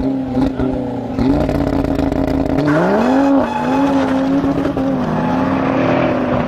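Audi hatchback's engine running at high revs as the car accelerates hard away from a standing start. The pitch climbs about a second in and again near three seconds, then holds steady.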